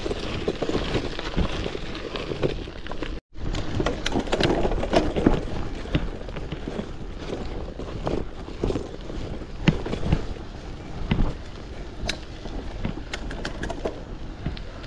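Kross Esker 2.0 gravel bike being ridden uphill over rough ground: tyres rumbling and crunching, with frequent knocks and rattles from the bike. The sound cuts out for a split second a little over three seconds in.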